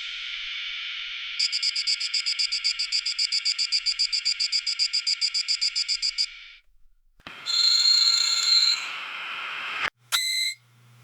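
Synthesized sci-fi photon torpedo launch sound effects. A steady electronic hum with a rapid high pulsing over it stops about six and a half seconds in; then a second, noisier shot with a bright held tone lasts a couple of seconds, and a short burst comes near the end.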